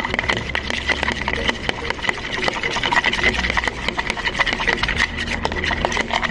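Raw eggs being beaten by hand with a utensil in a plastic bowl: rapid, irregular clicking and scraping of the utensil against the bowl as the egg is whisked. A steady high hum runs underneath.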